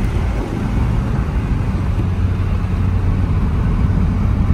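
Mini Cooper driving at a steady cruise, heard from inside the cabin: a steady low engine drone with tyre and road noise.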